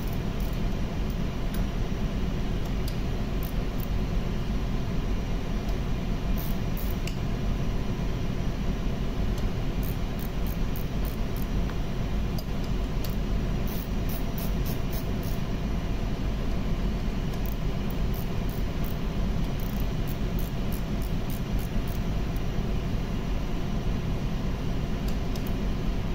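Steady machinery drone with a low hum, over which small metal parts and hand tools give scattered light clinks as a vacuum pump is worked on.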